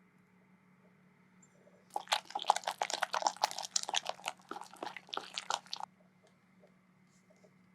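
Food preparation with a kitchen utensil: a run of rapid, crunchy clicks and scrapes lasting about four seconds, starting about two seconds in, over a faint steady hum.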